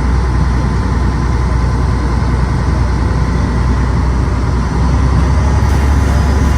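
Steady low engine drone under a rushing noise, growing slightly louder a little before the end.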